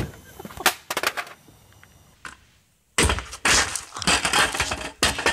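A few sharp knocks and thuds, then, after a short gap, a dense stretch of clattering noise with more knocks.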